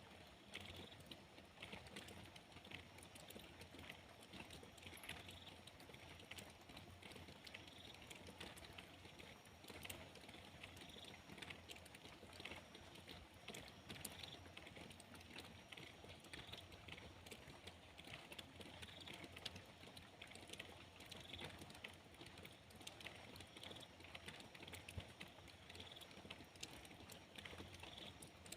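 Faint rain pattering, a dense, irregular ticking of drops over a steady hiss.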